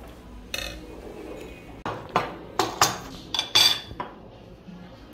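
Porcelain dishes and metal utensils clinking on a table: one light knock, then a cluster of about six sharp clinks with a brief ring in the middle.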